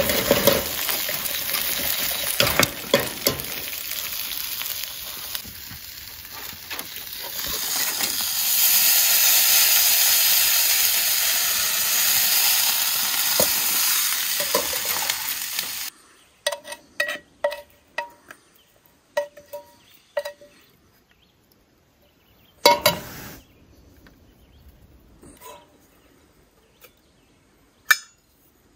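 Steaks sizzling over campfire coals: a loud, steady sizzle with crackles that cuts off suddenly about halfway through. After it come light metallic clinks and a couple of sharper knocks.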